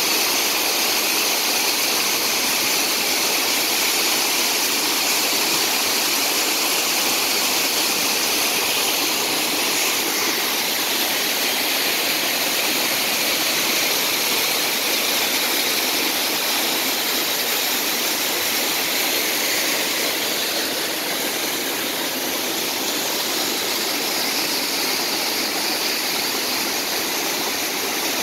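Waterfall, water falling and splashing in a steady, unbroken rush.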